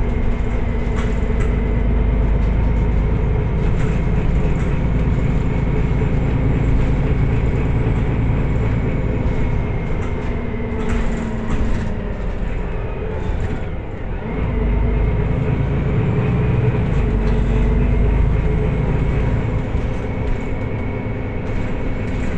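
Cabin ride noise of a Solaris Urbino 18 IV articulated city bus on the move: a steady low rumble with a drivetrain whine and occasional interior rattles. The noise eases about two-thirds of the way through, then picks up again.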